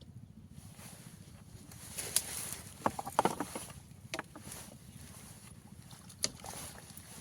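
Water splashing and sloshing, with a cluster of sharp knocks in the middle and another near the end, over a steady low hum.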